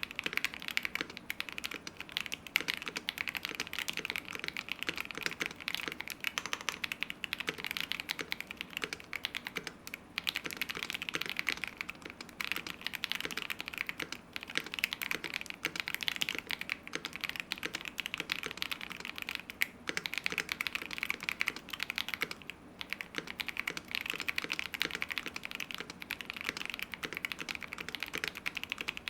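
Continuous typing on a KBD67 Lite mechanical keyboard with Akko Radiant Red linear switches, a polycarbonate plate and lubed Durock V2 stabilizers. The keystrokes come in fast, dense runs with a few brief pauses.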